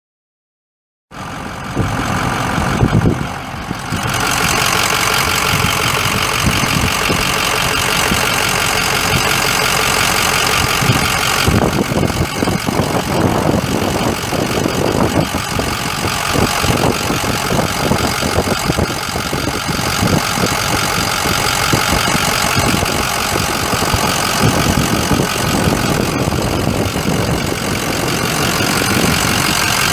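2006 Ford F450 Super Duty's 6.0L V8 turbo-diesel engine idling steadily, the sound cutting in about a second in.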